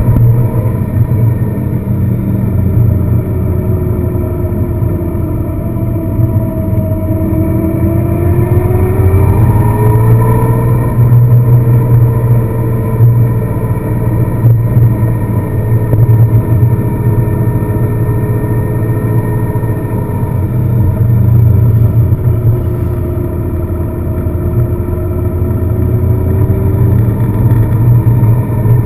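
A car being driven, a steady low engine and road drone. The engine note rises for a few seconds early in the stretch and later sinks slowly.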